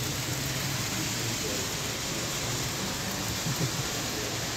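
Toy trains running on a large layout: a steady rolling whir and rumble of wheels on metal track, with no break or sharp event.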